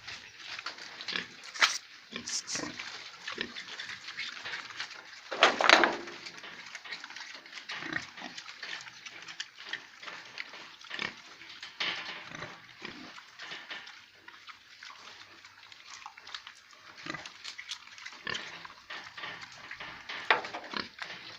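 Piglets squealing and grunting in short, irregular calls throughout, with the loudest squeal about five and a half seconds in and another loud one near the end.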